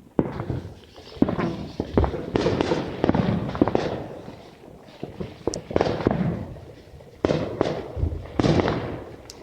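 Fireworks exploding in repeated bangs, several in quick clusters, each dying away over about a second.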